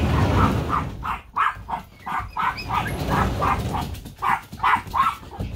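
Penned dogs barking over and over, about three barks a second. A low rumble sits under the barking in the first second.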